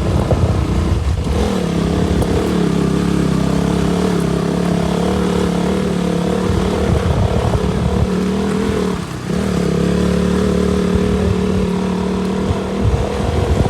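KTM RC 200 motorcycle's single-cylinder engine running at a steady speed while being ridden, with a brief dip about nine seconds in before it picks up again.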